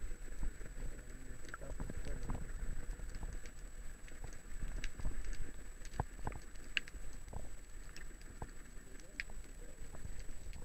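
Underwater ambience picked up by a camera in its waterproof housing: a muffled low rumble of moving water with irregular sharp clicks and pops. A steady high-pitched tone runs underneath throughout.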